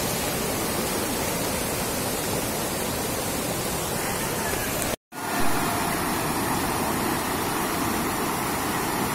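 Steady rush of floodwater pouring over a submerged road crossing, cutting out completely for an instant about halfway through.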